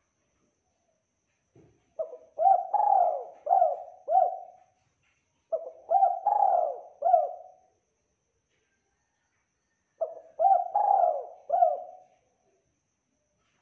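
Spotted dove (tekukur) cooing: three phrases of several rising-and-falling coos, a few seconds apart.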